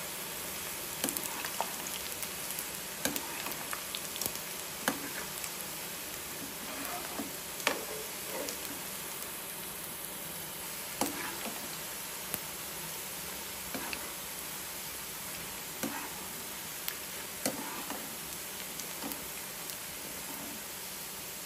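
Boondi, small gram-flour batter droplets, deep-frying in oil in a pan: a steady sizzle, with irregular clicks and knocks of a slotted spoon stirring against the pan.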